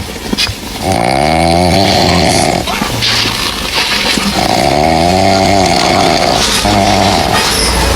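A cat snoring loudly, a long snore with each breath: one starting about a second in and another around four and a half seconds in, each followed by a shorter one.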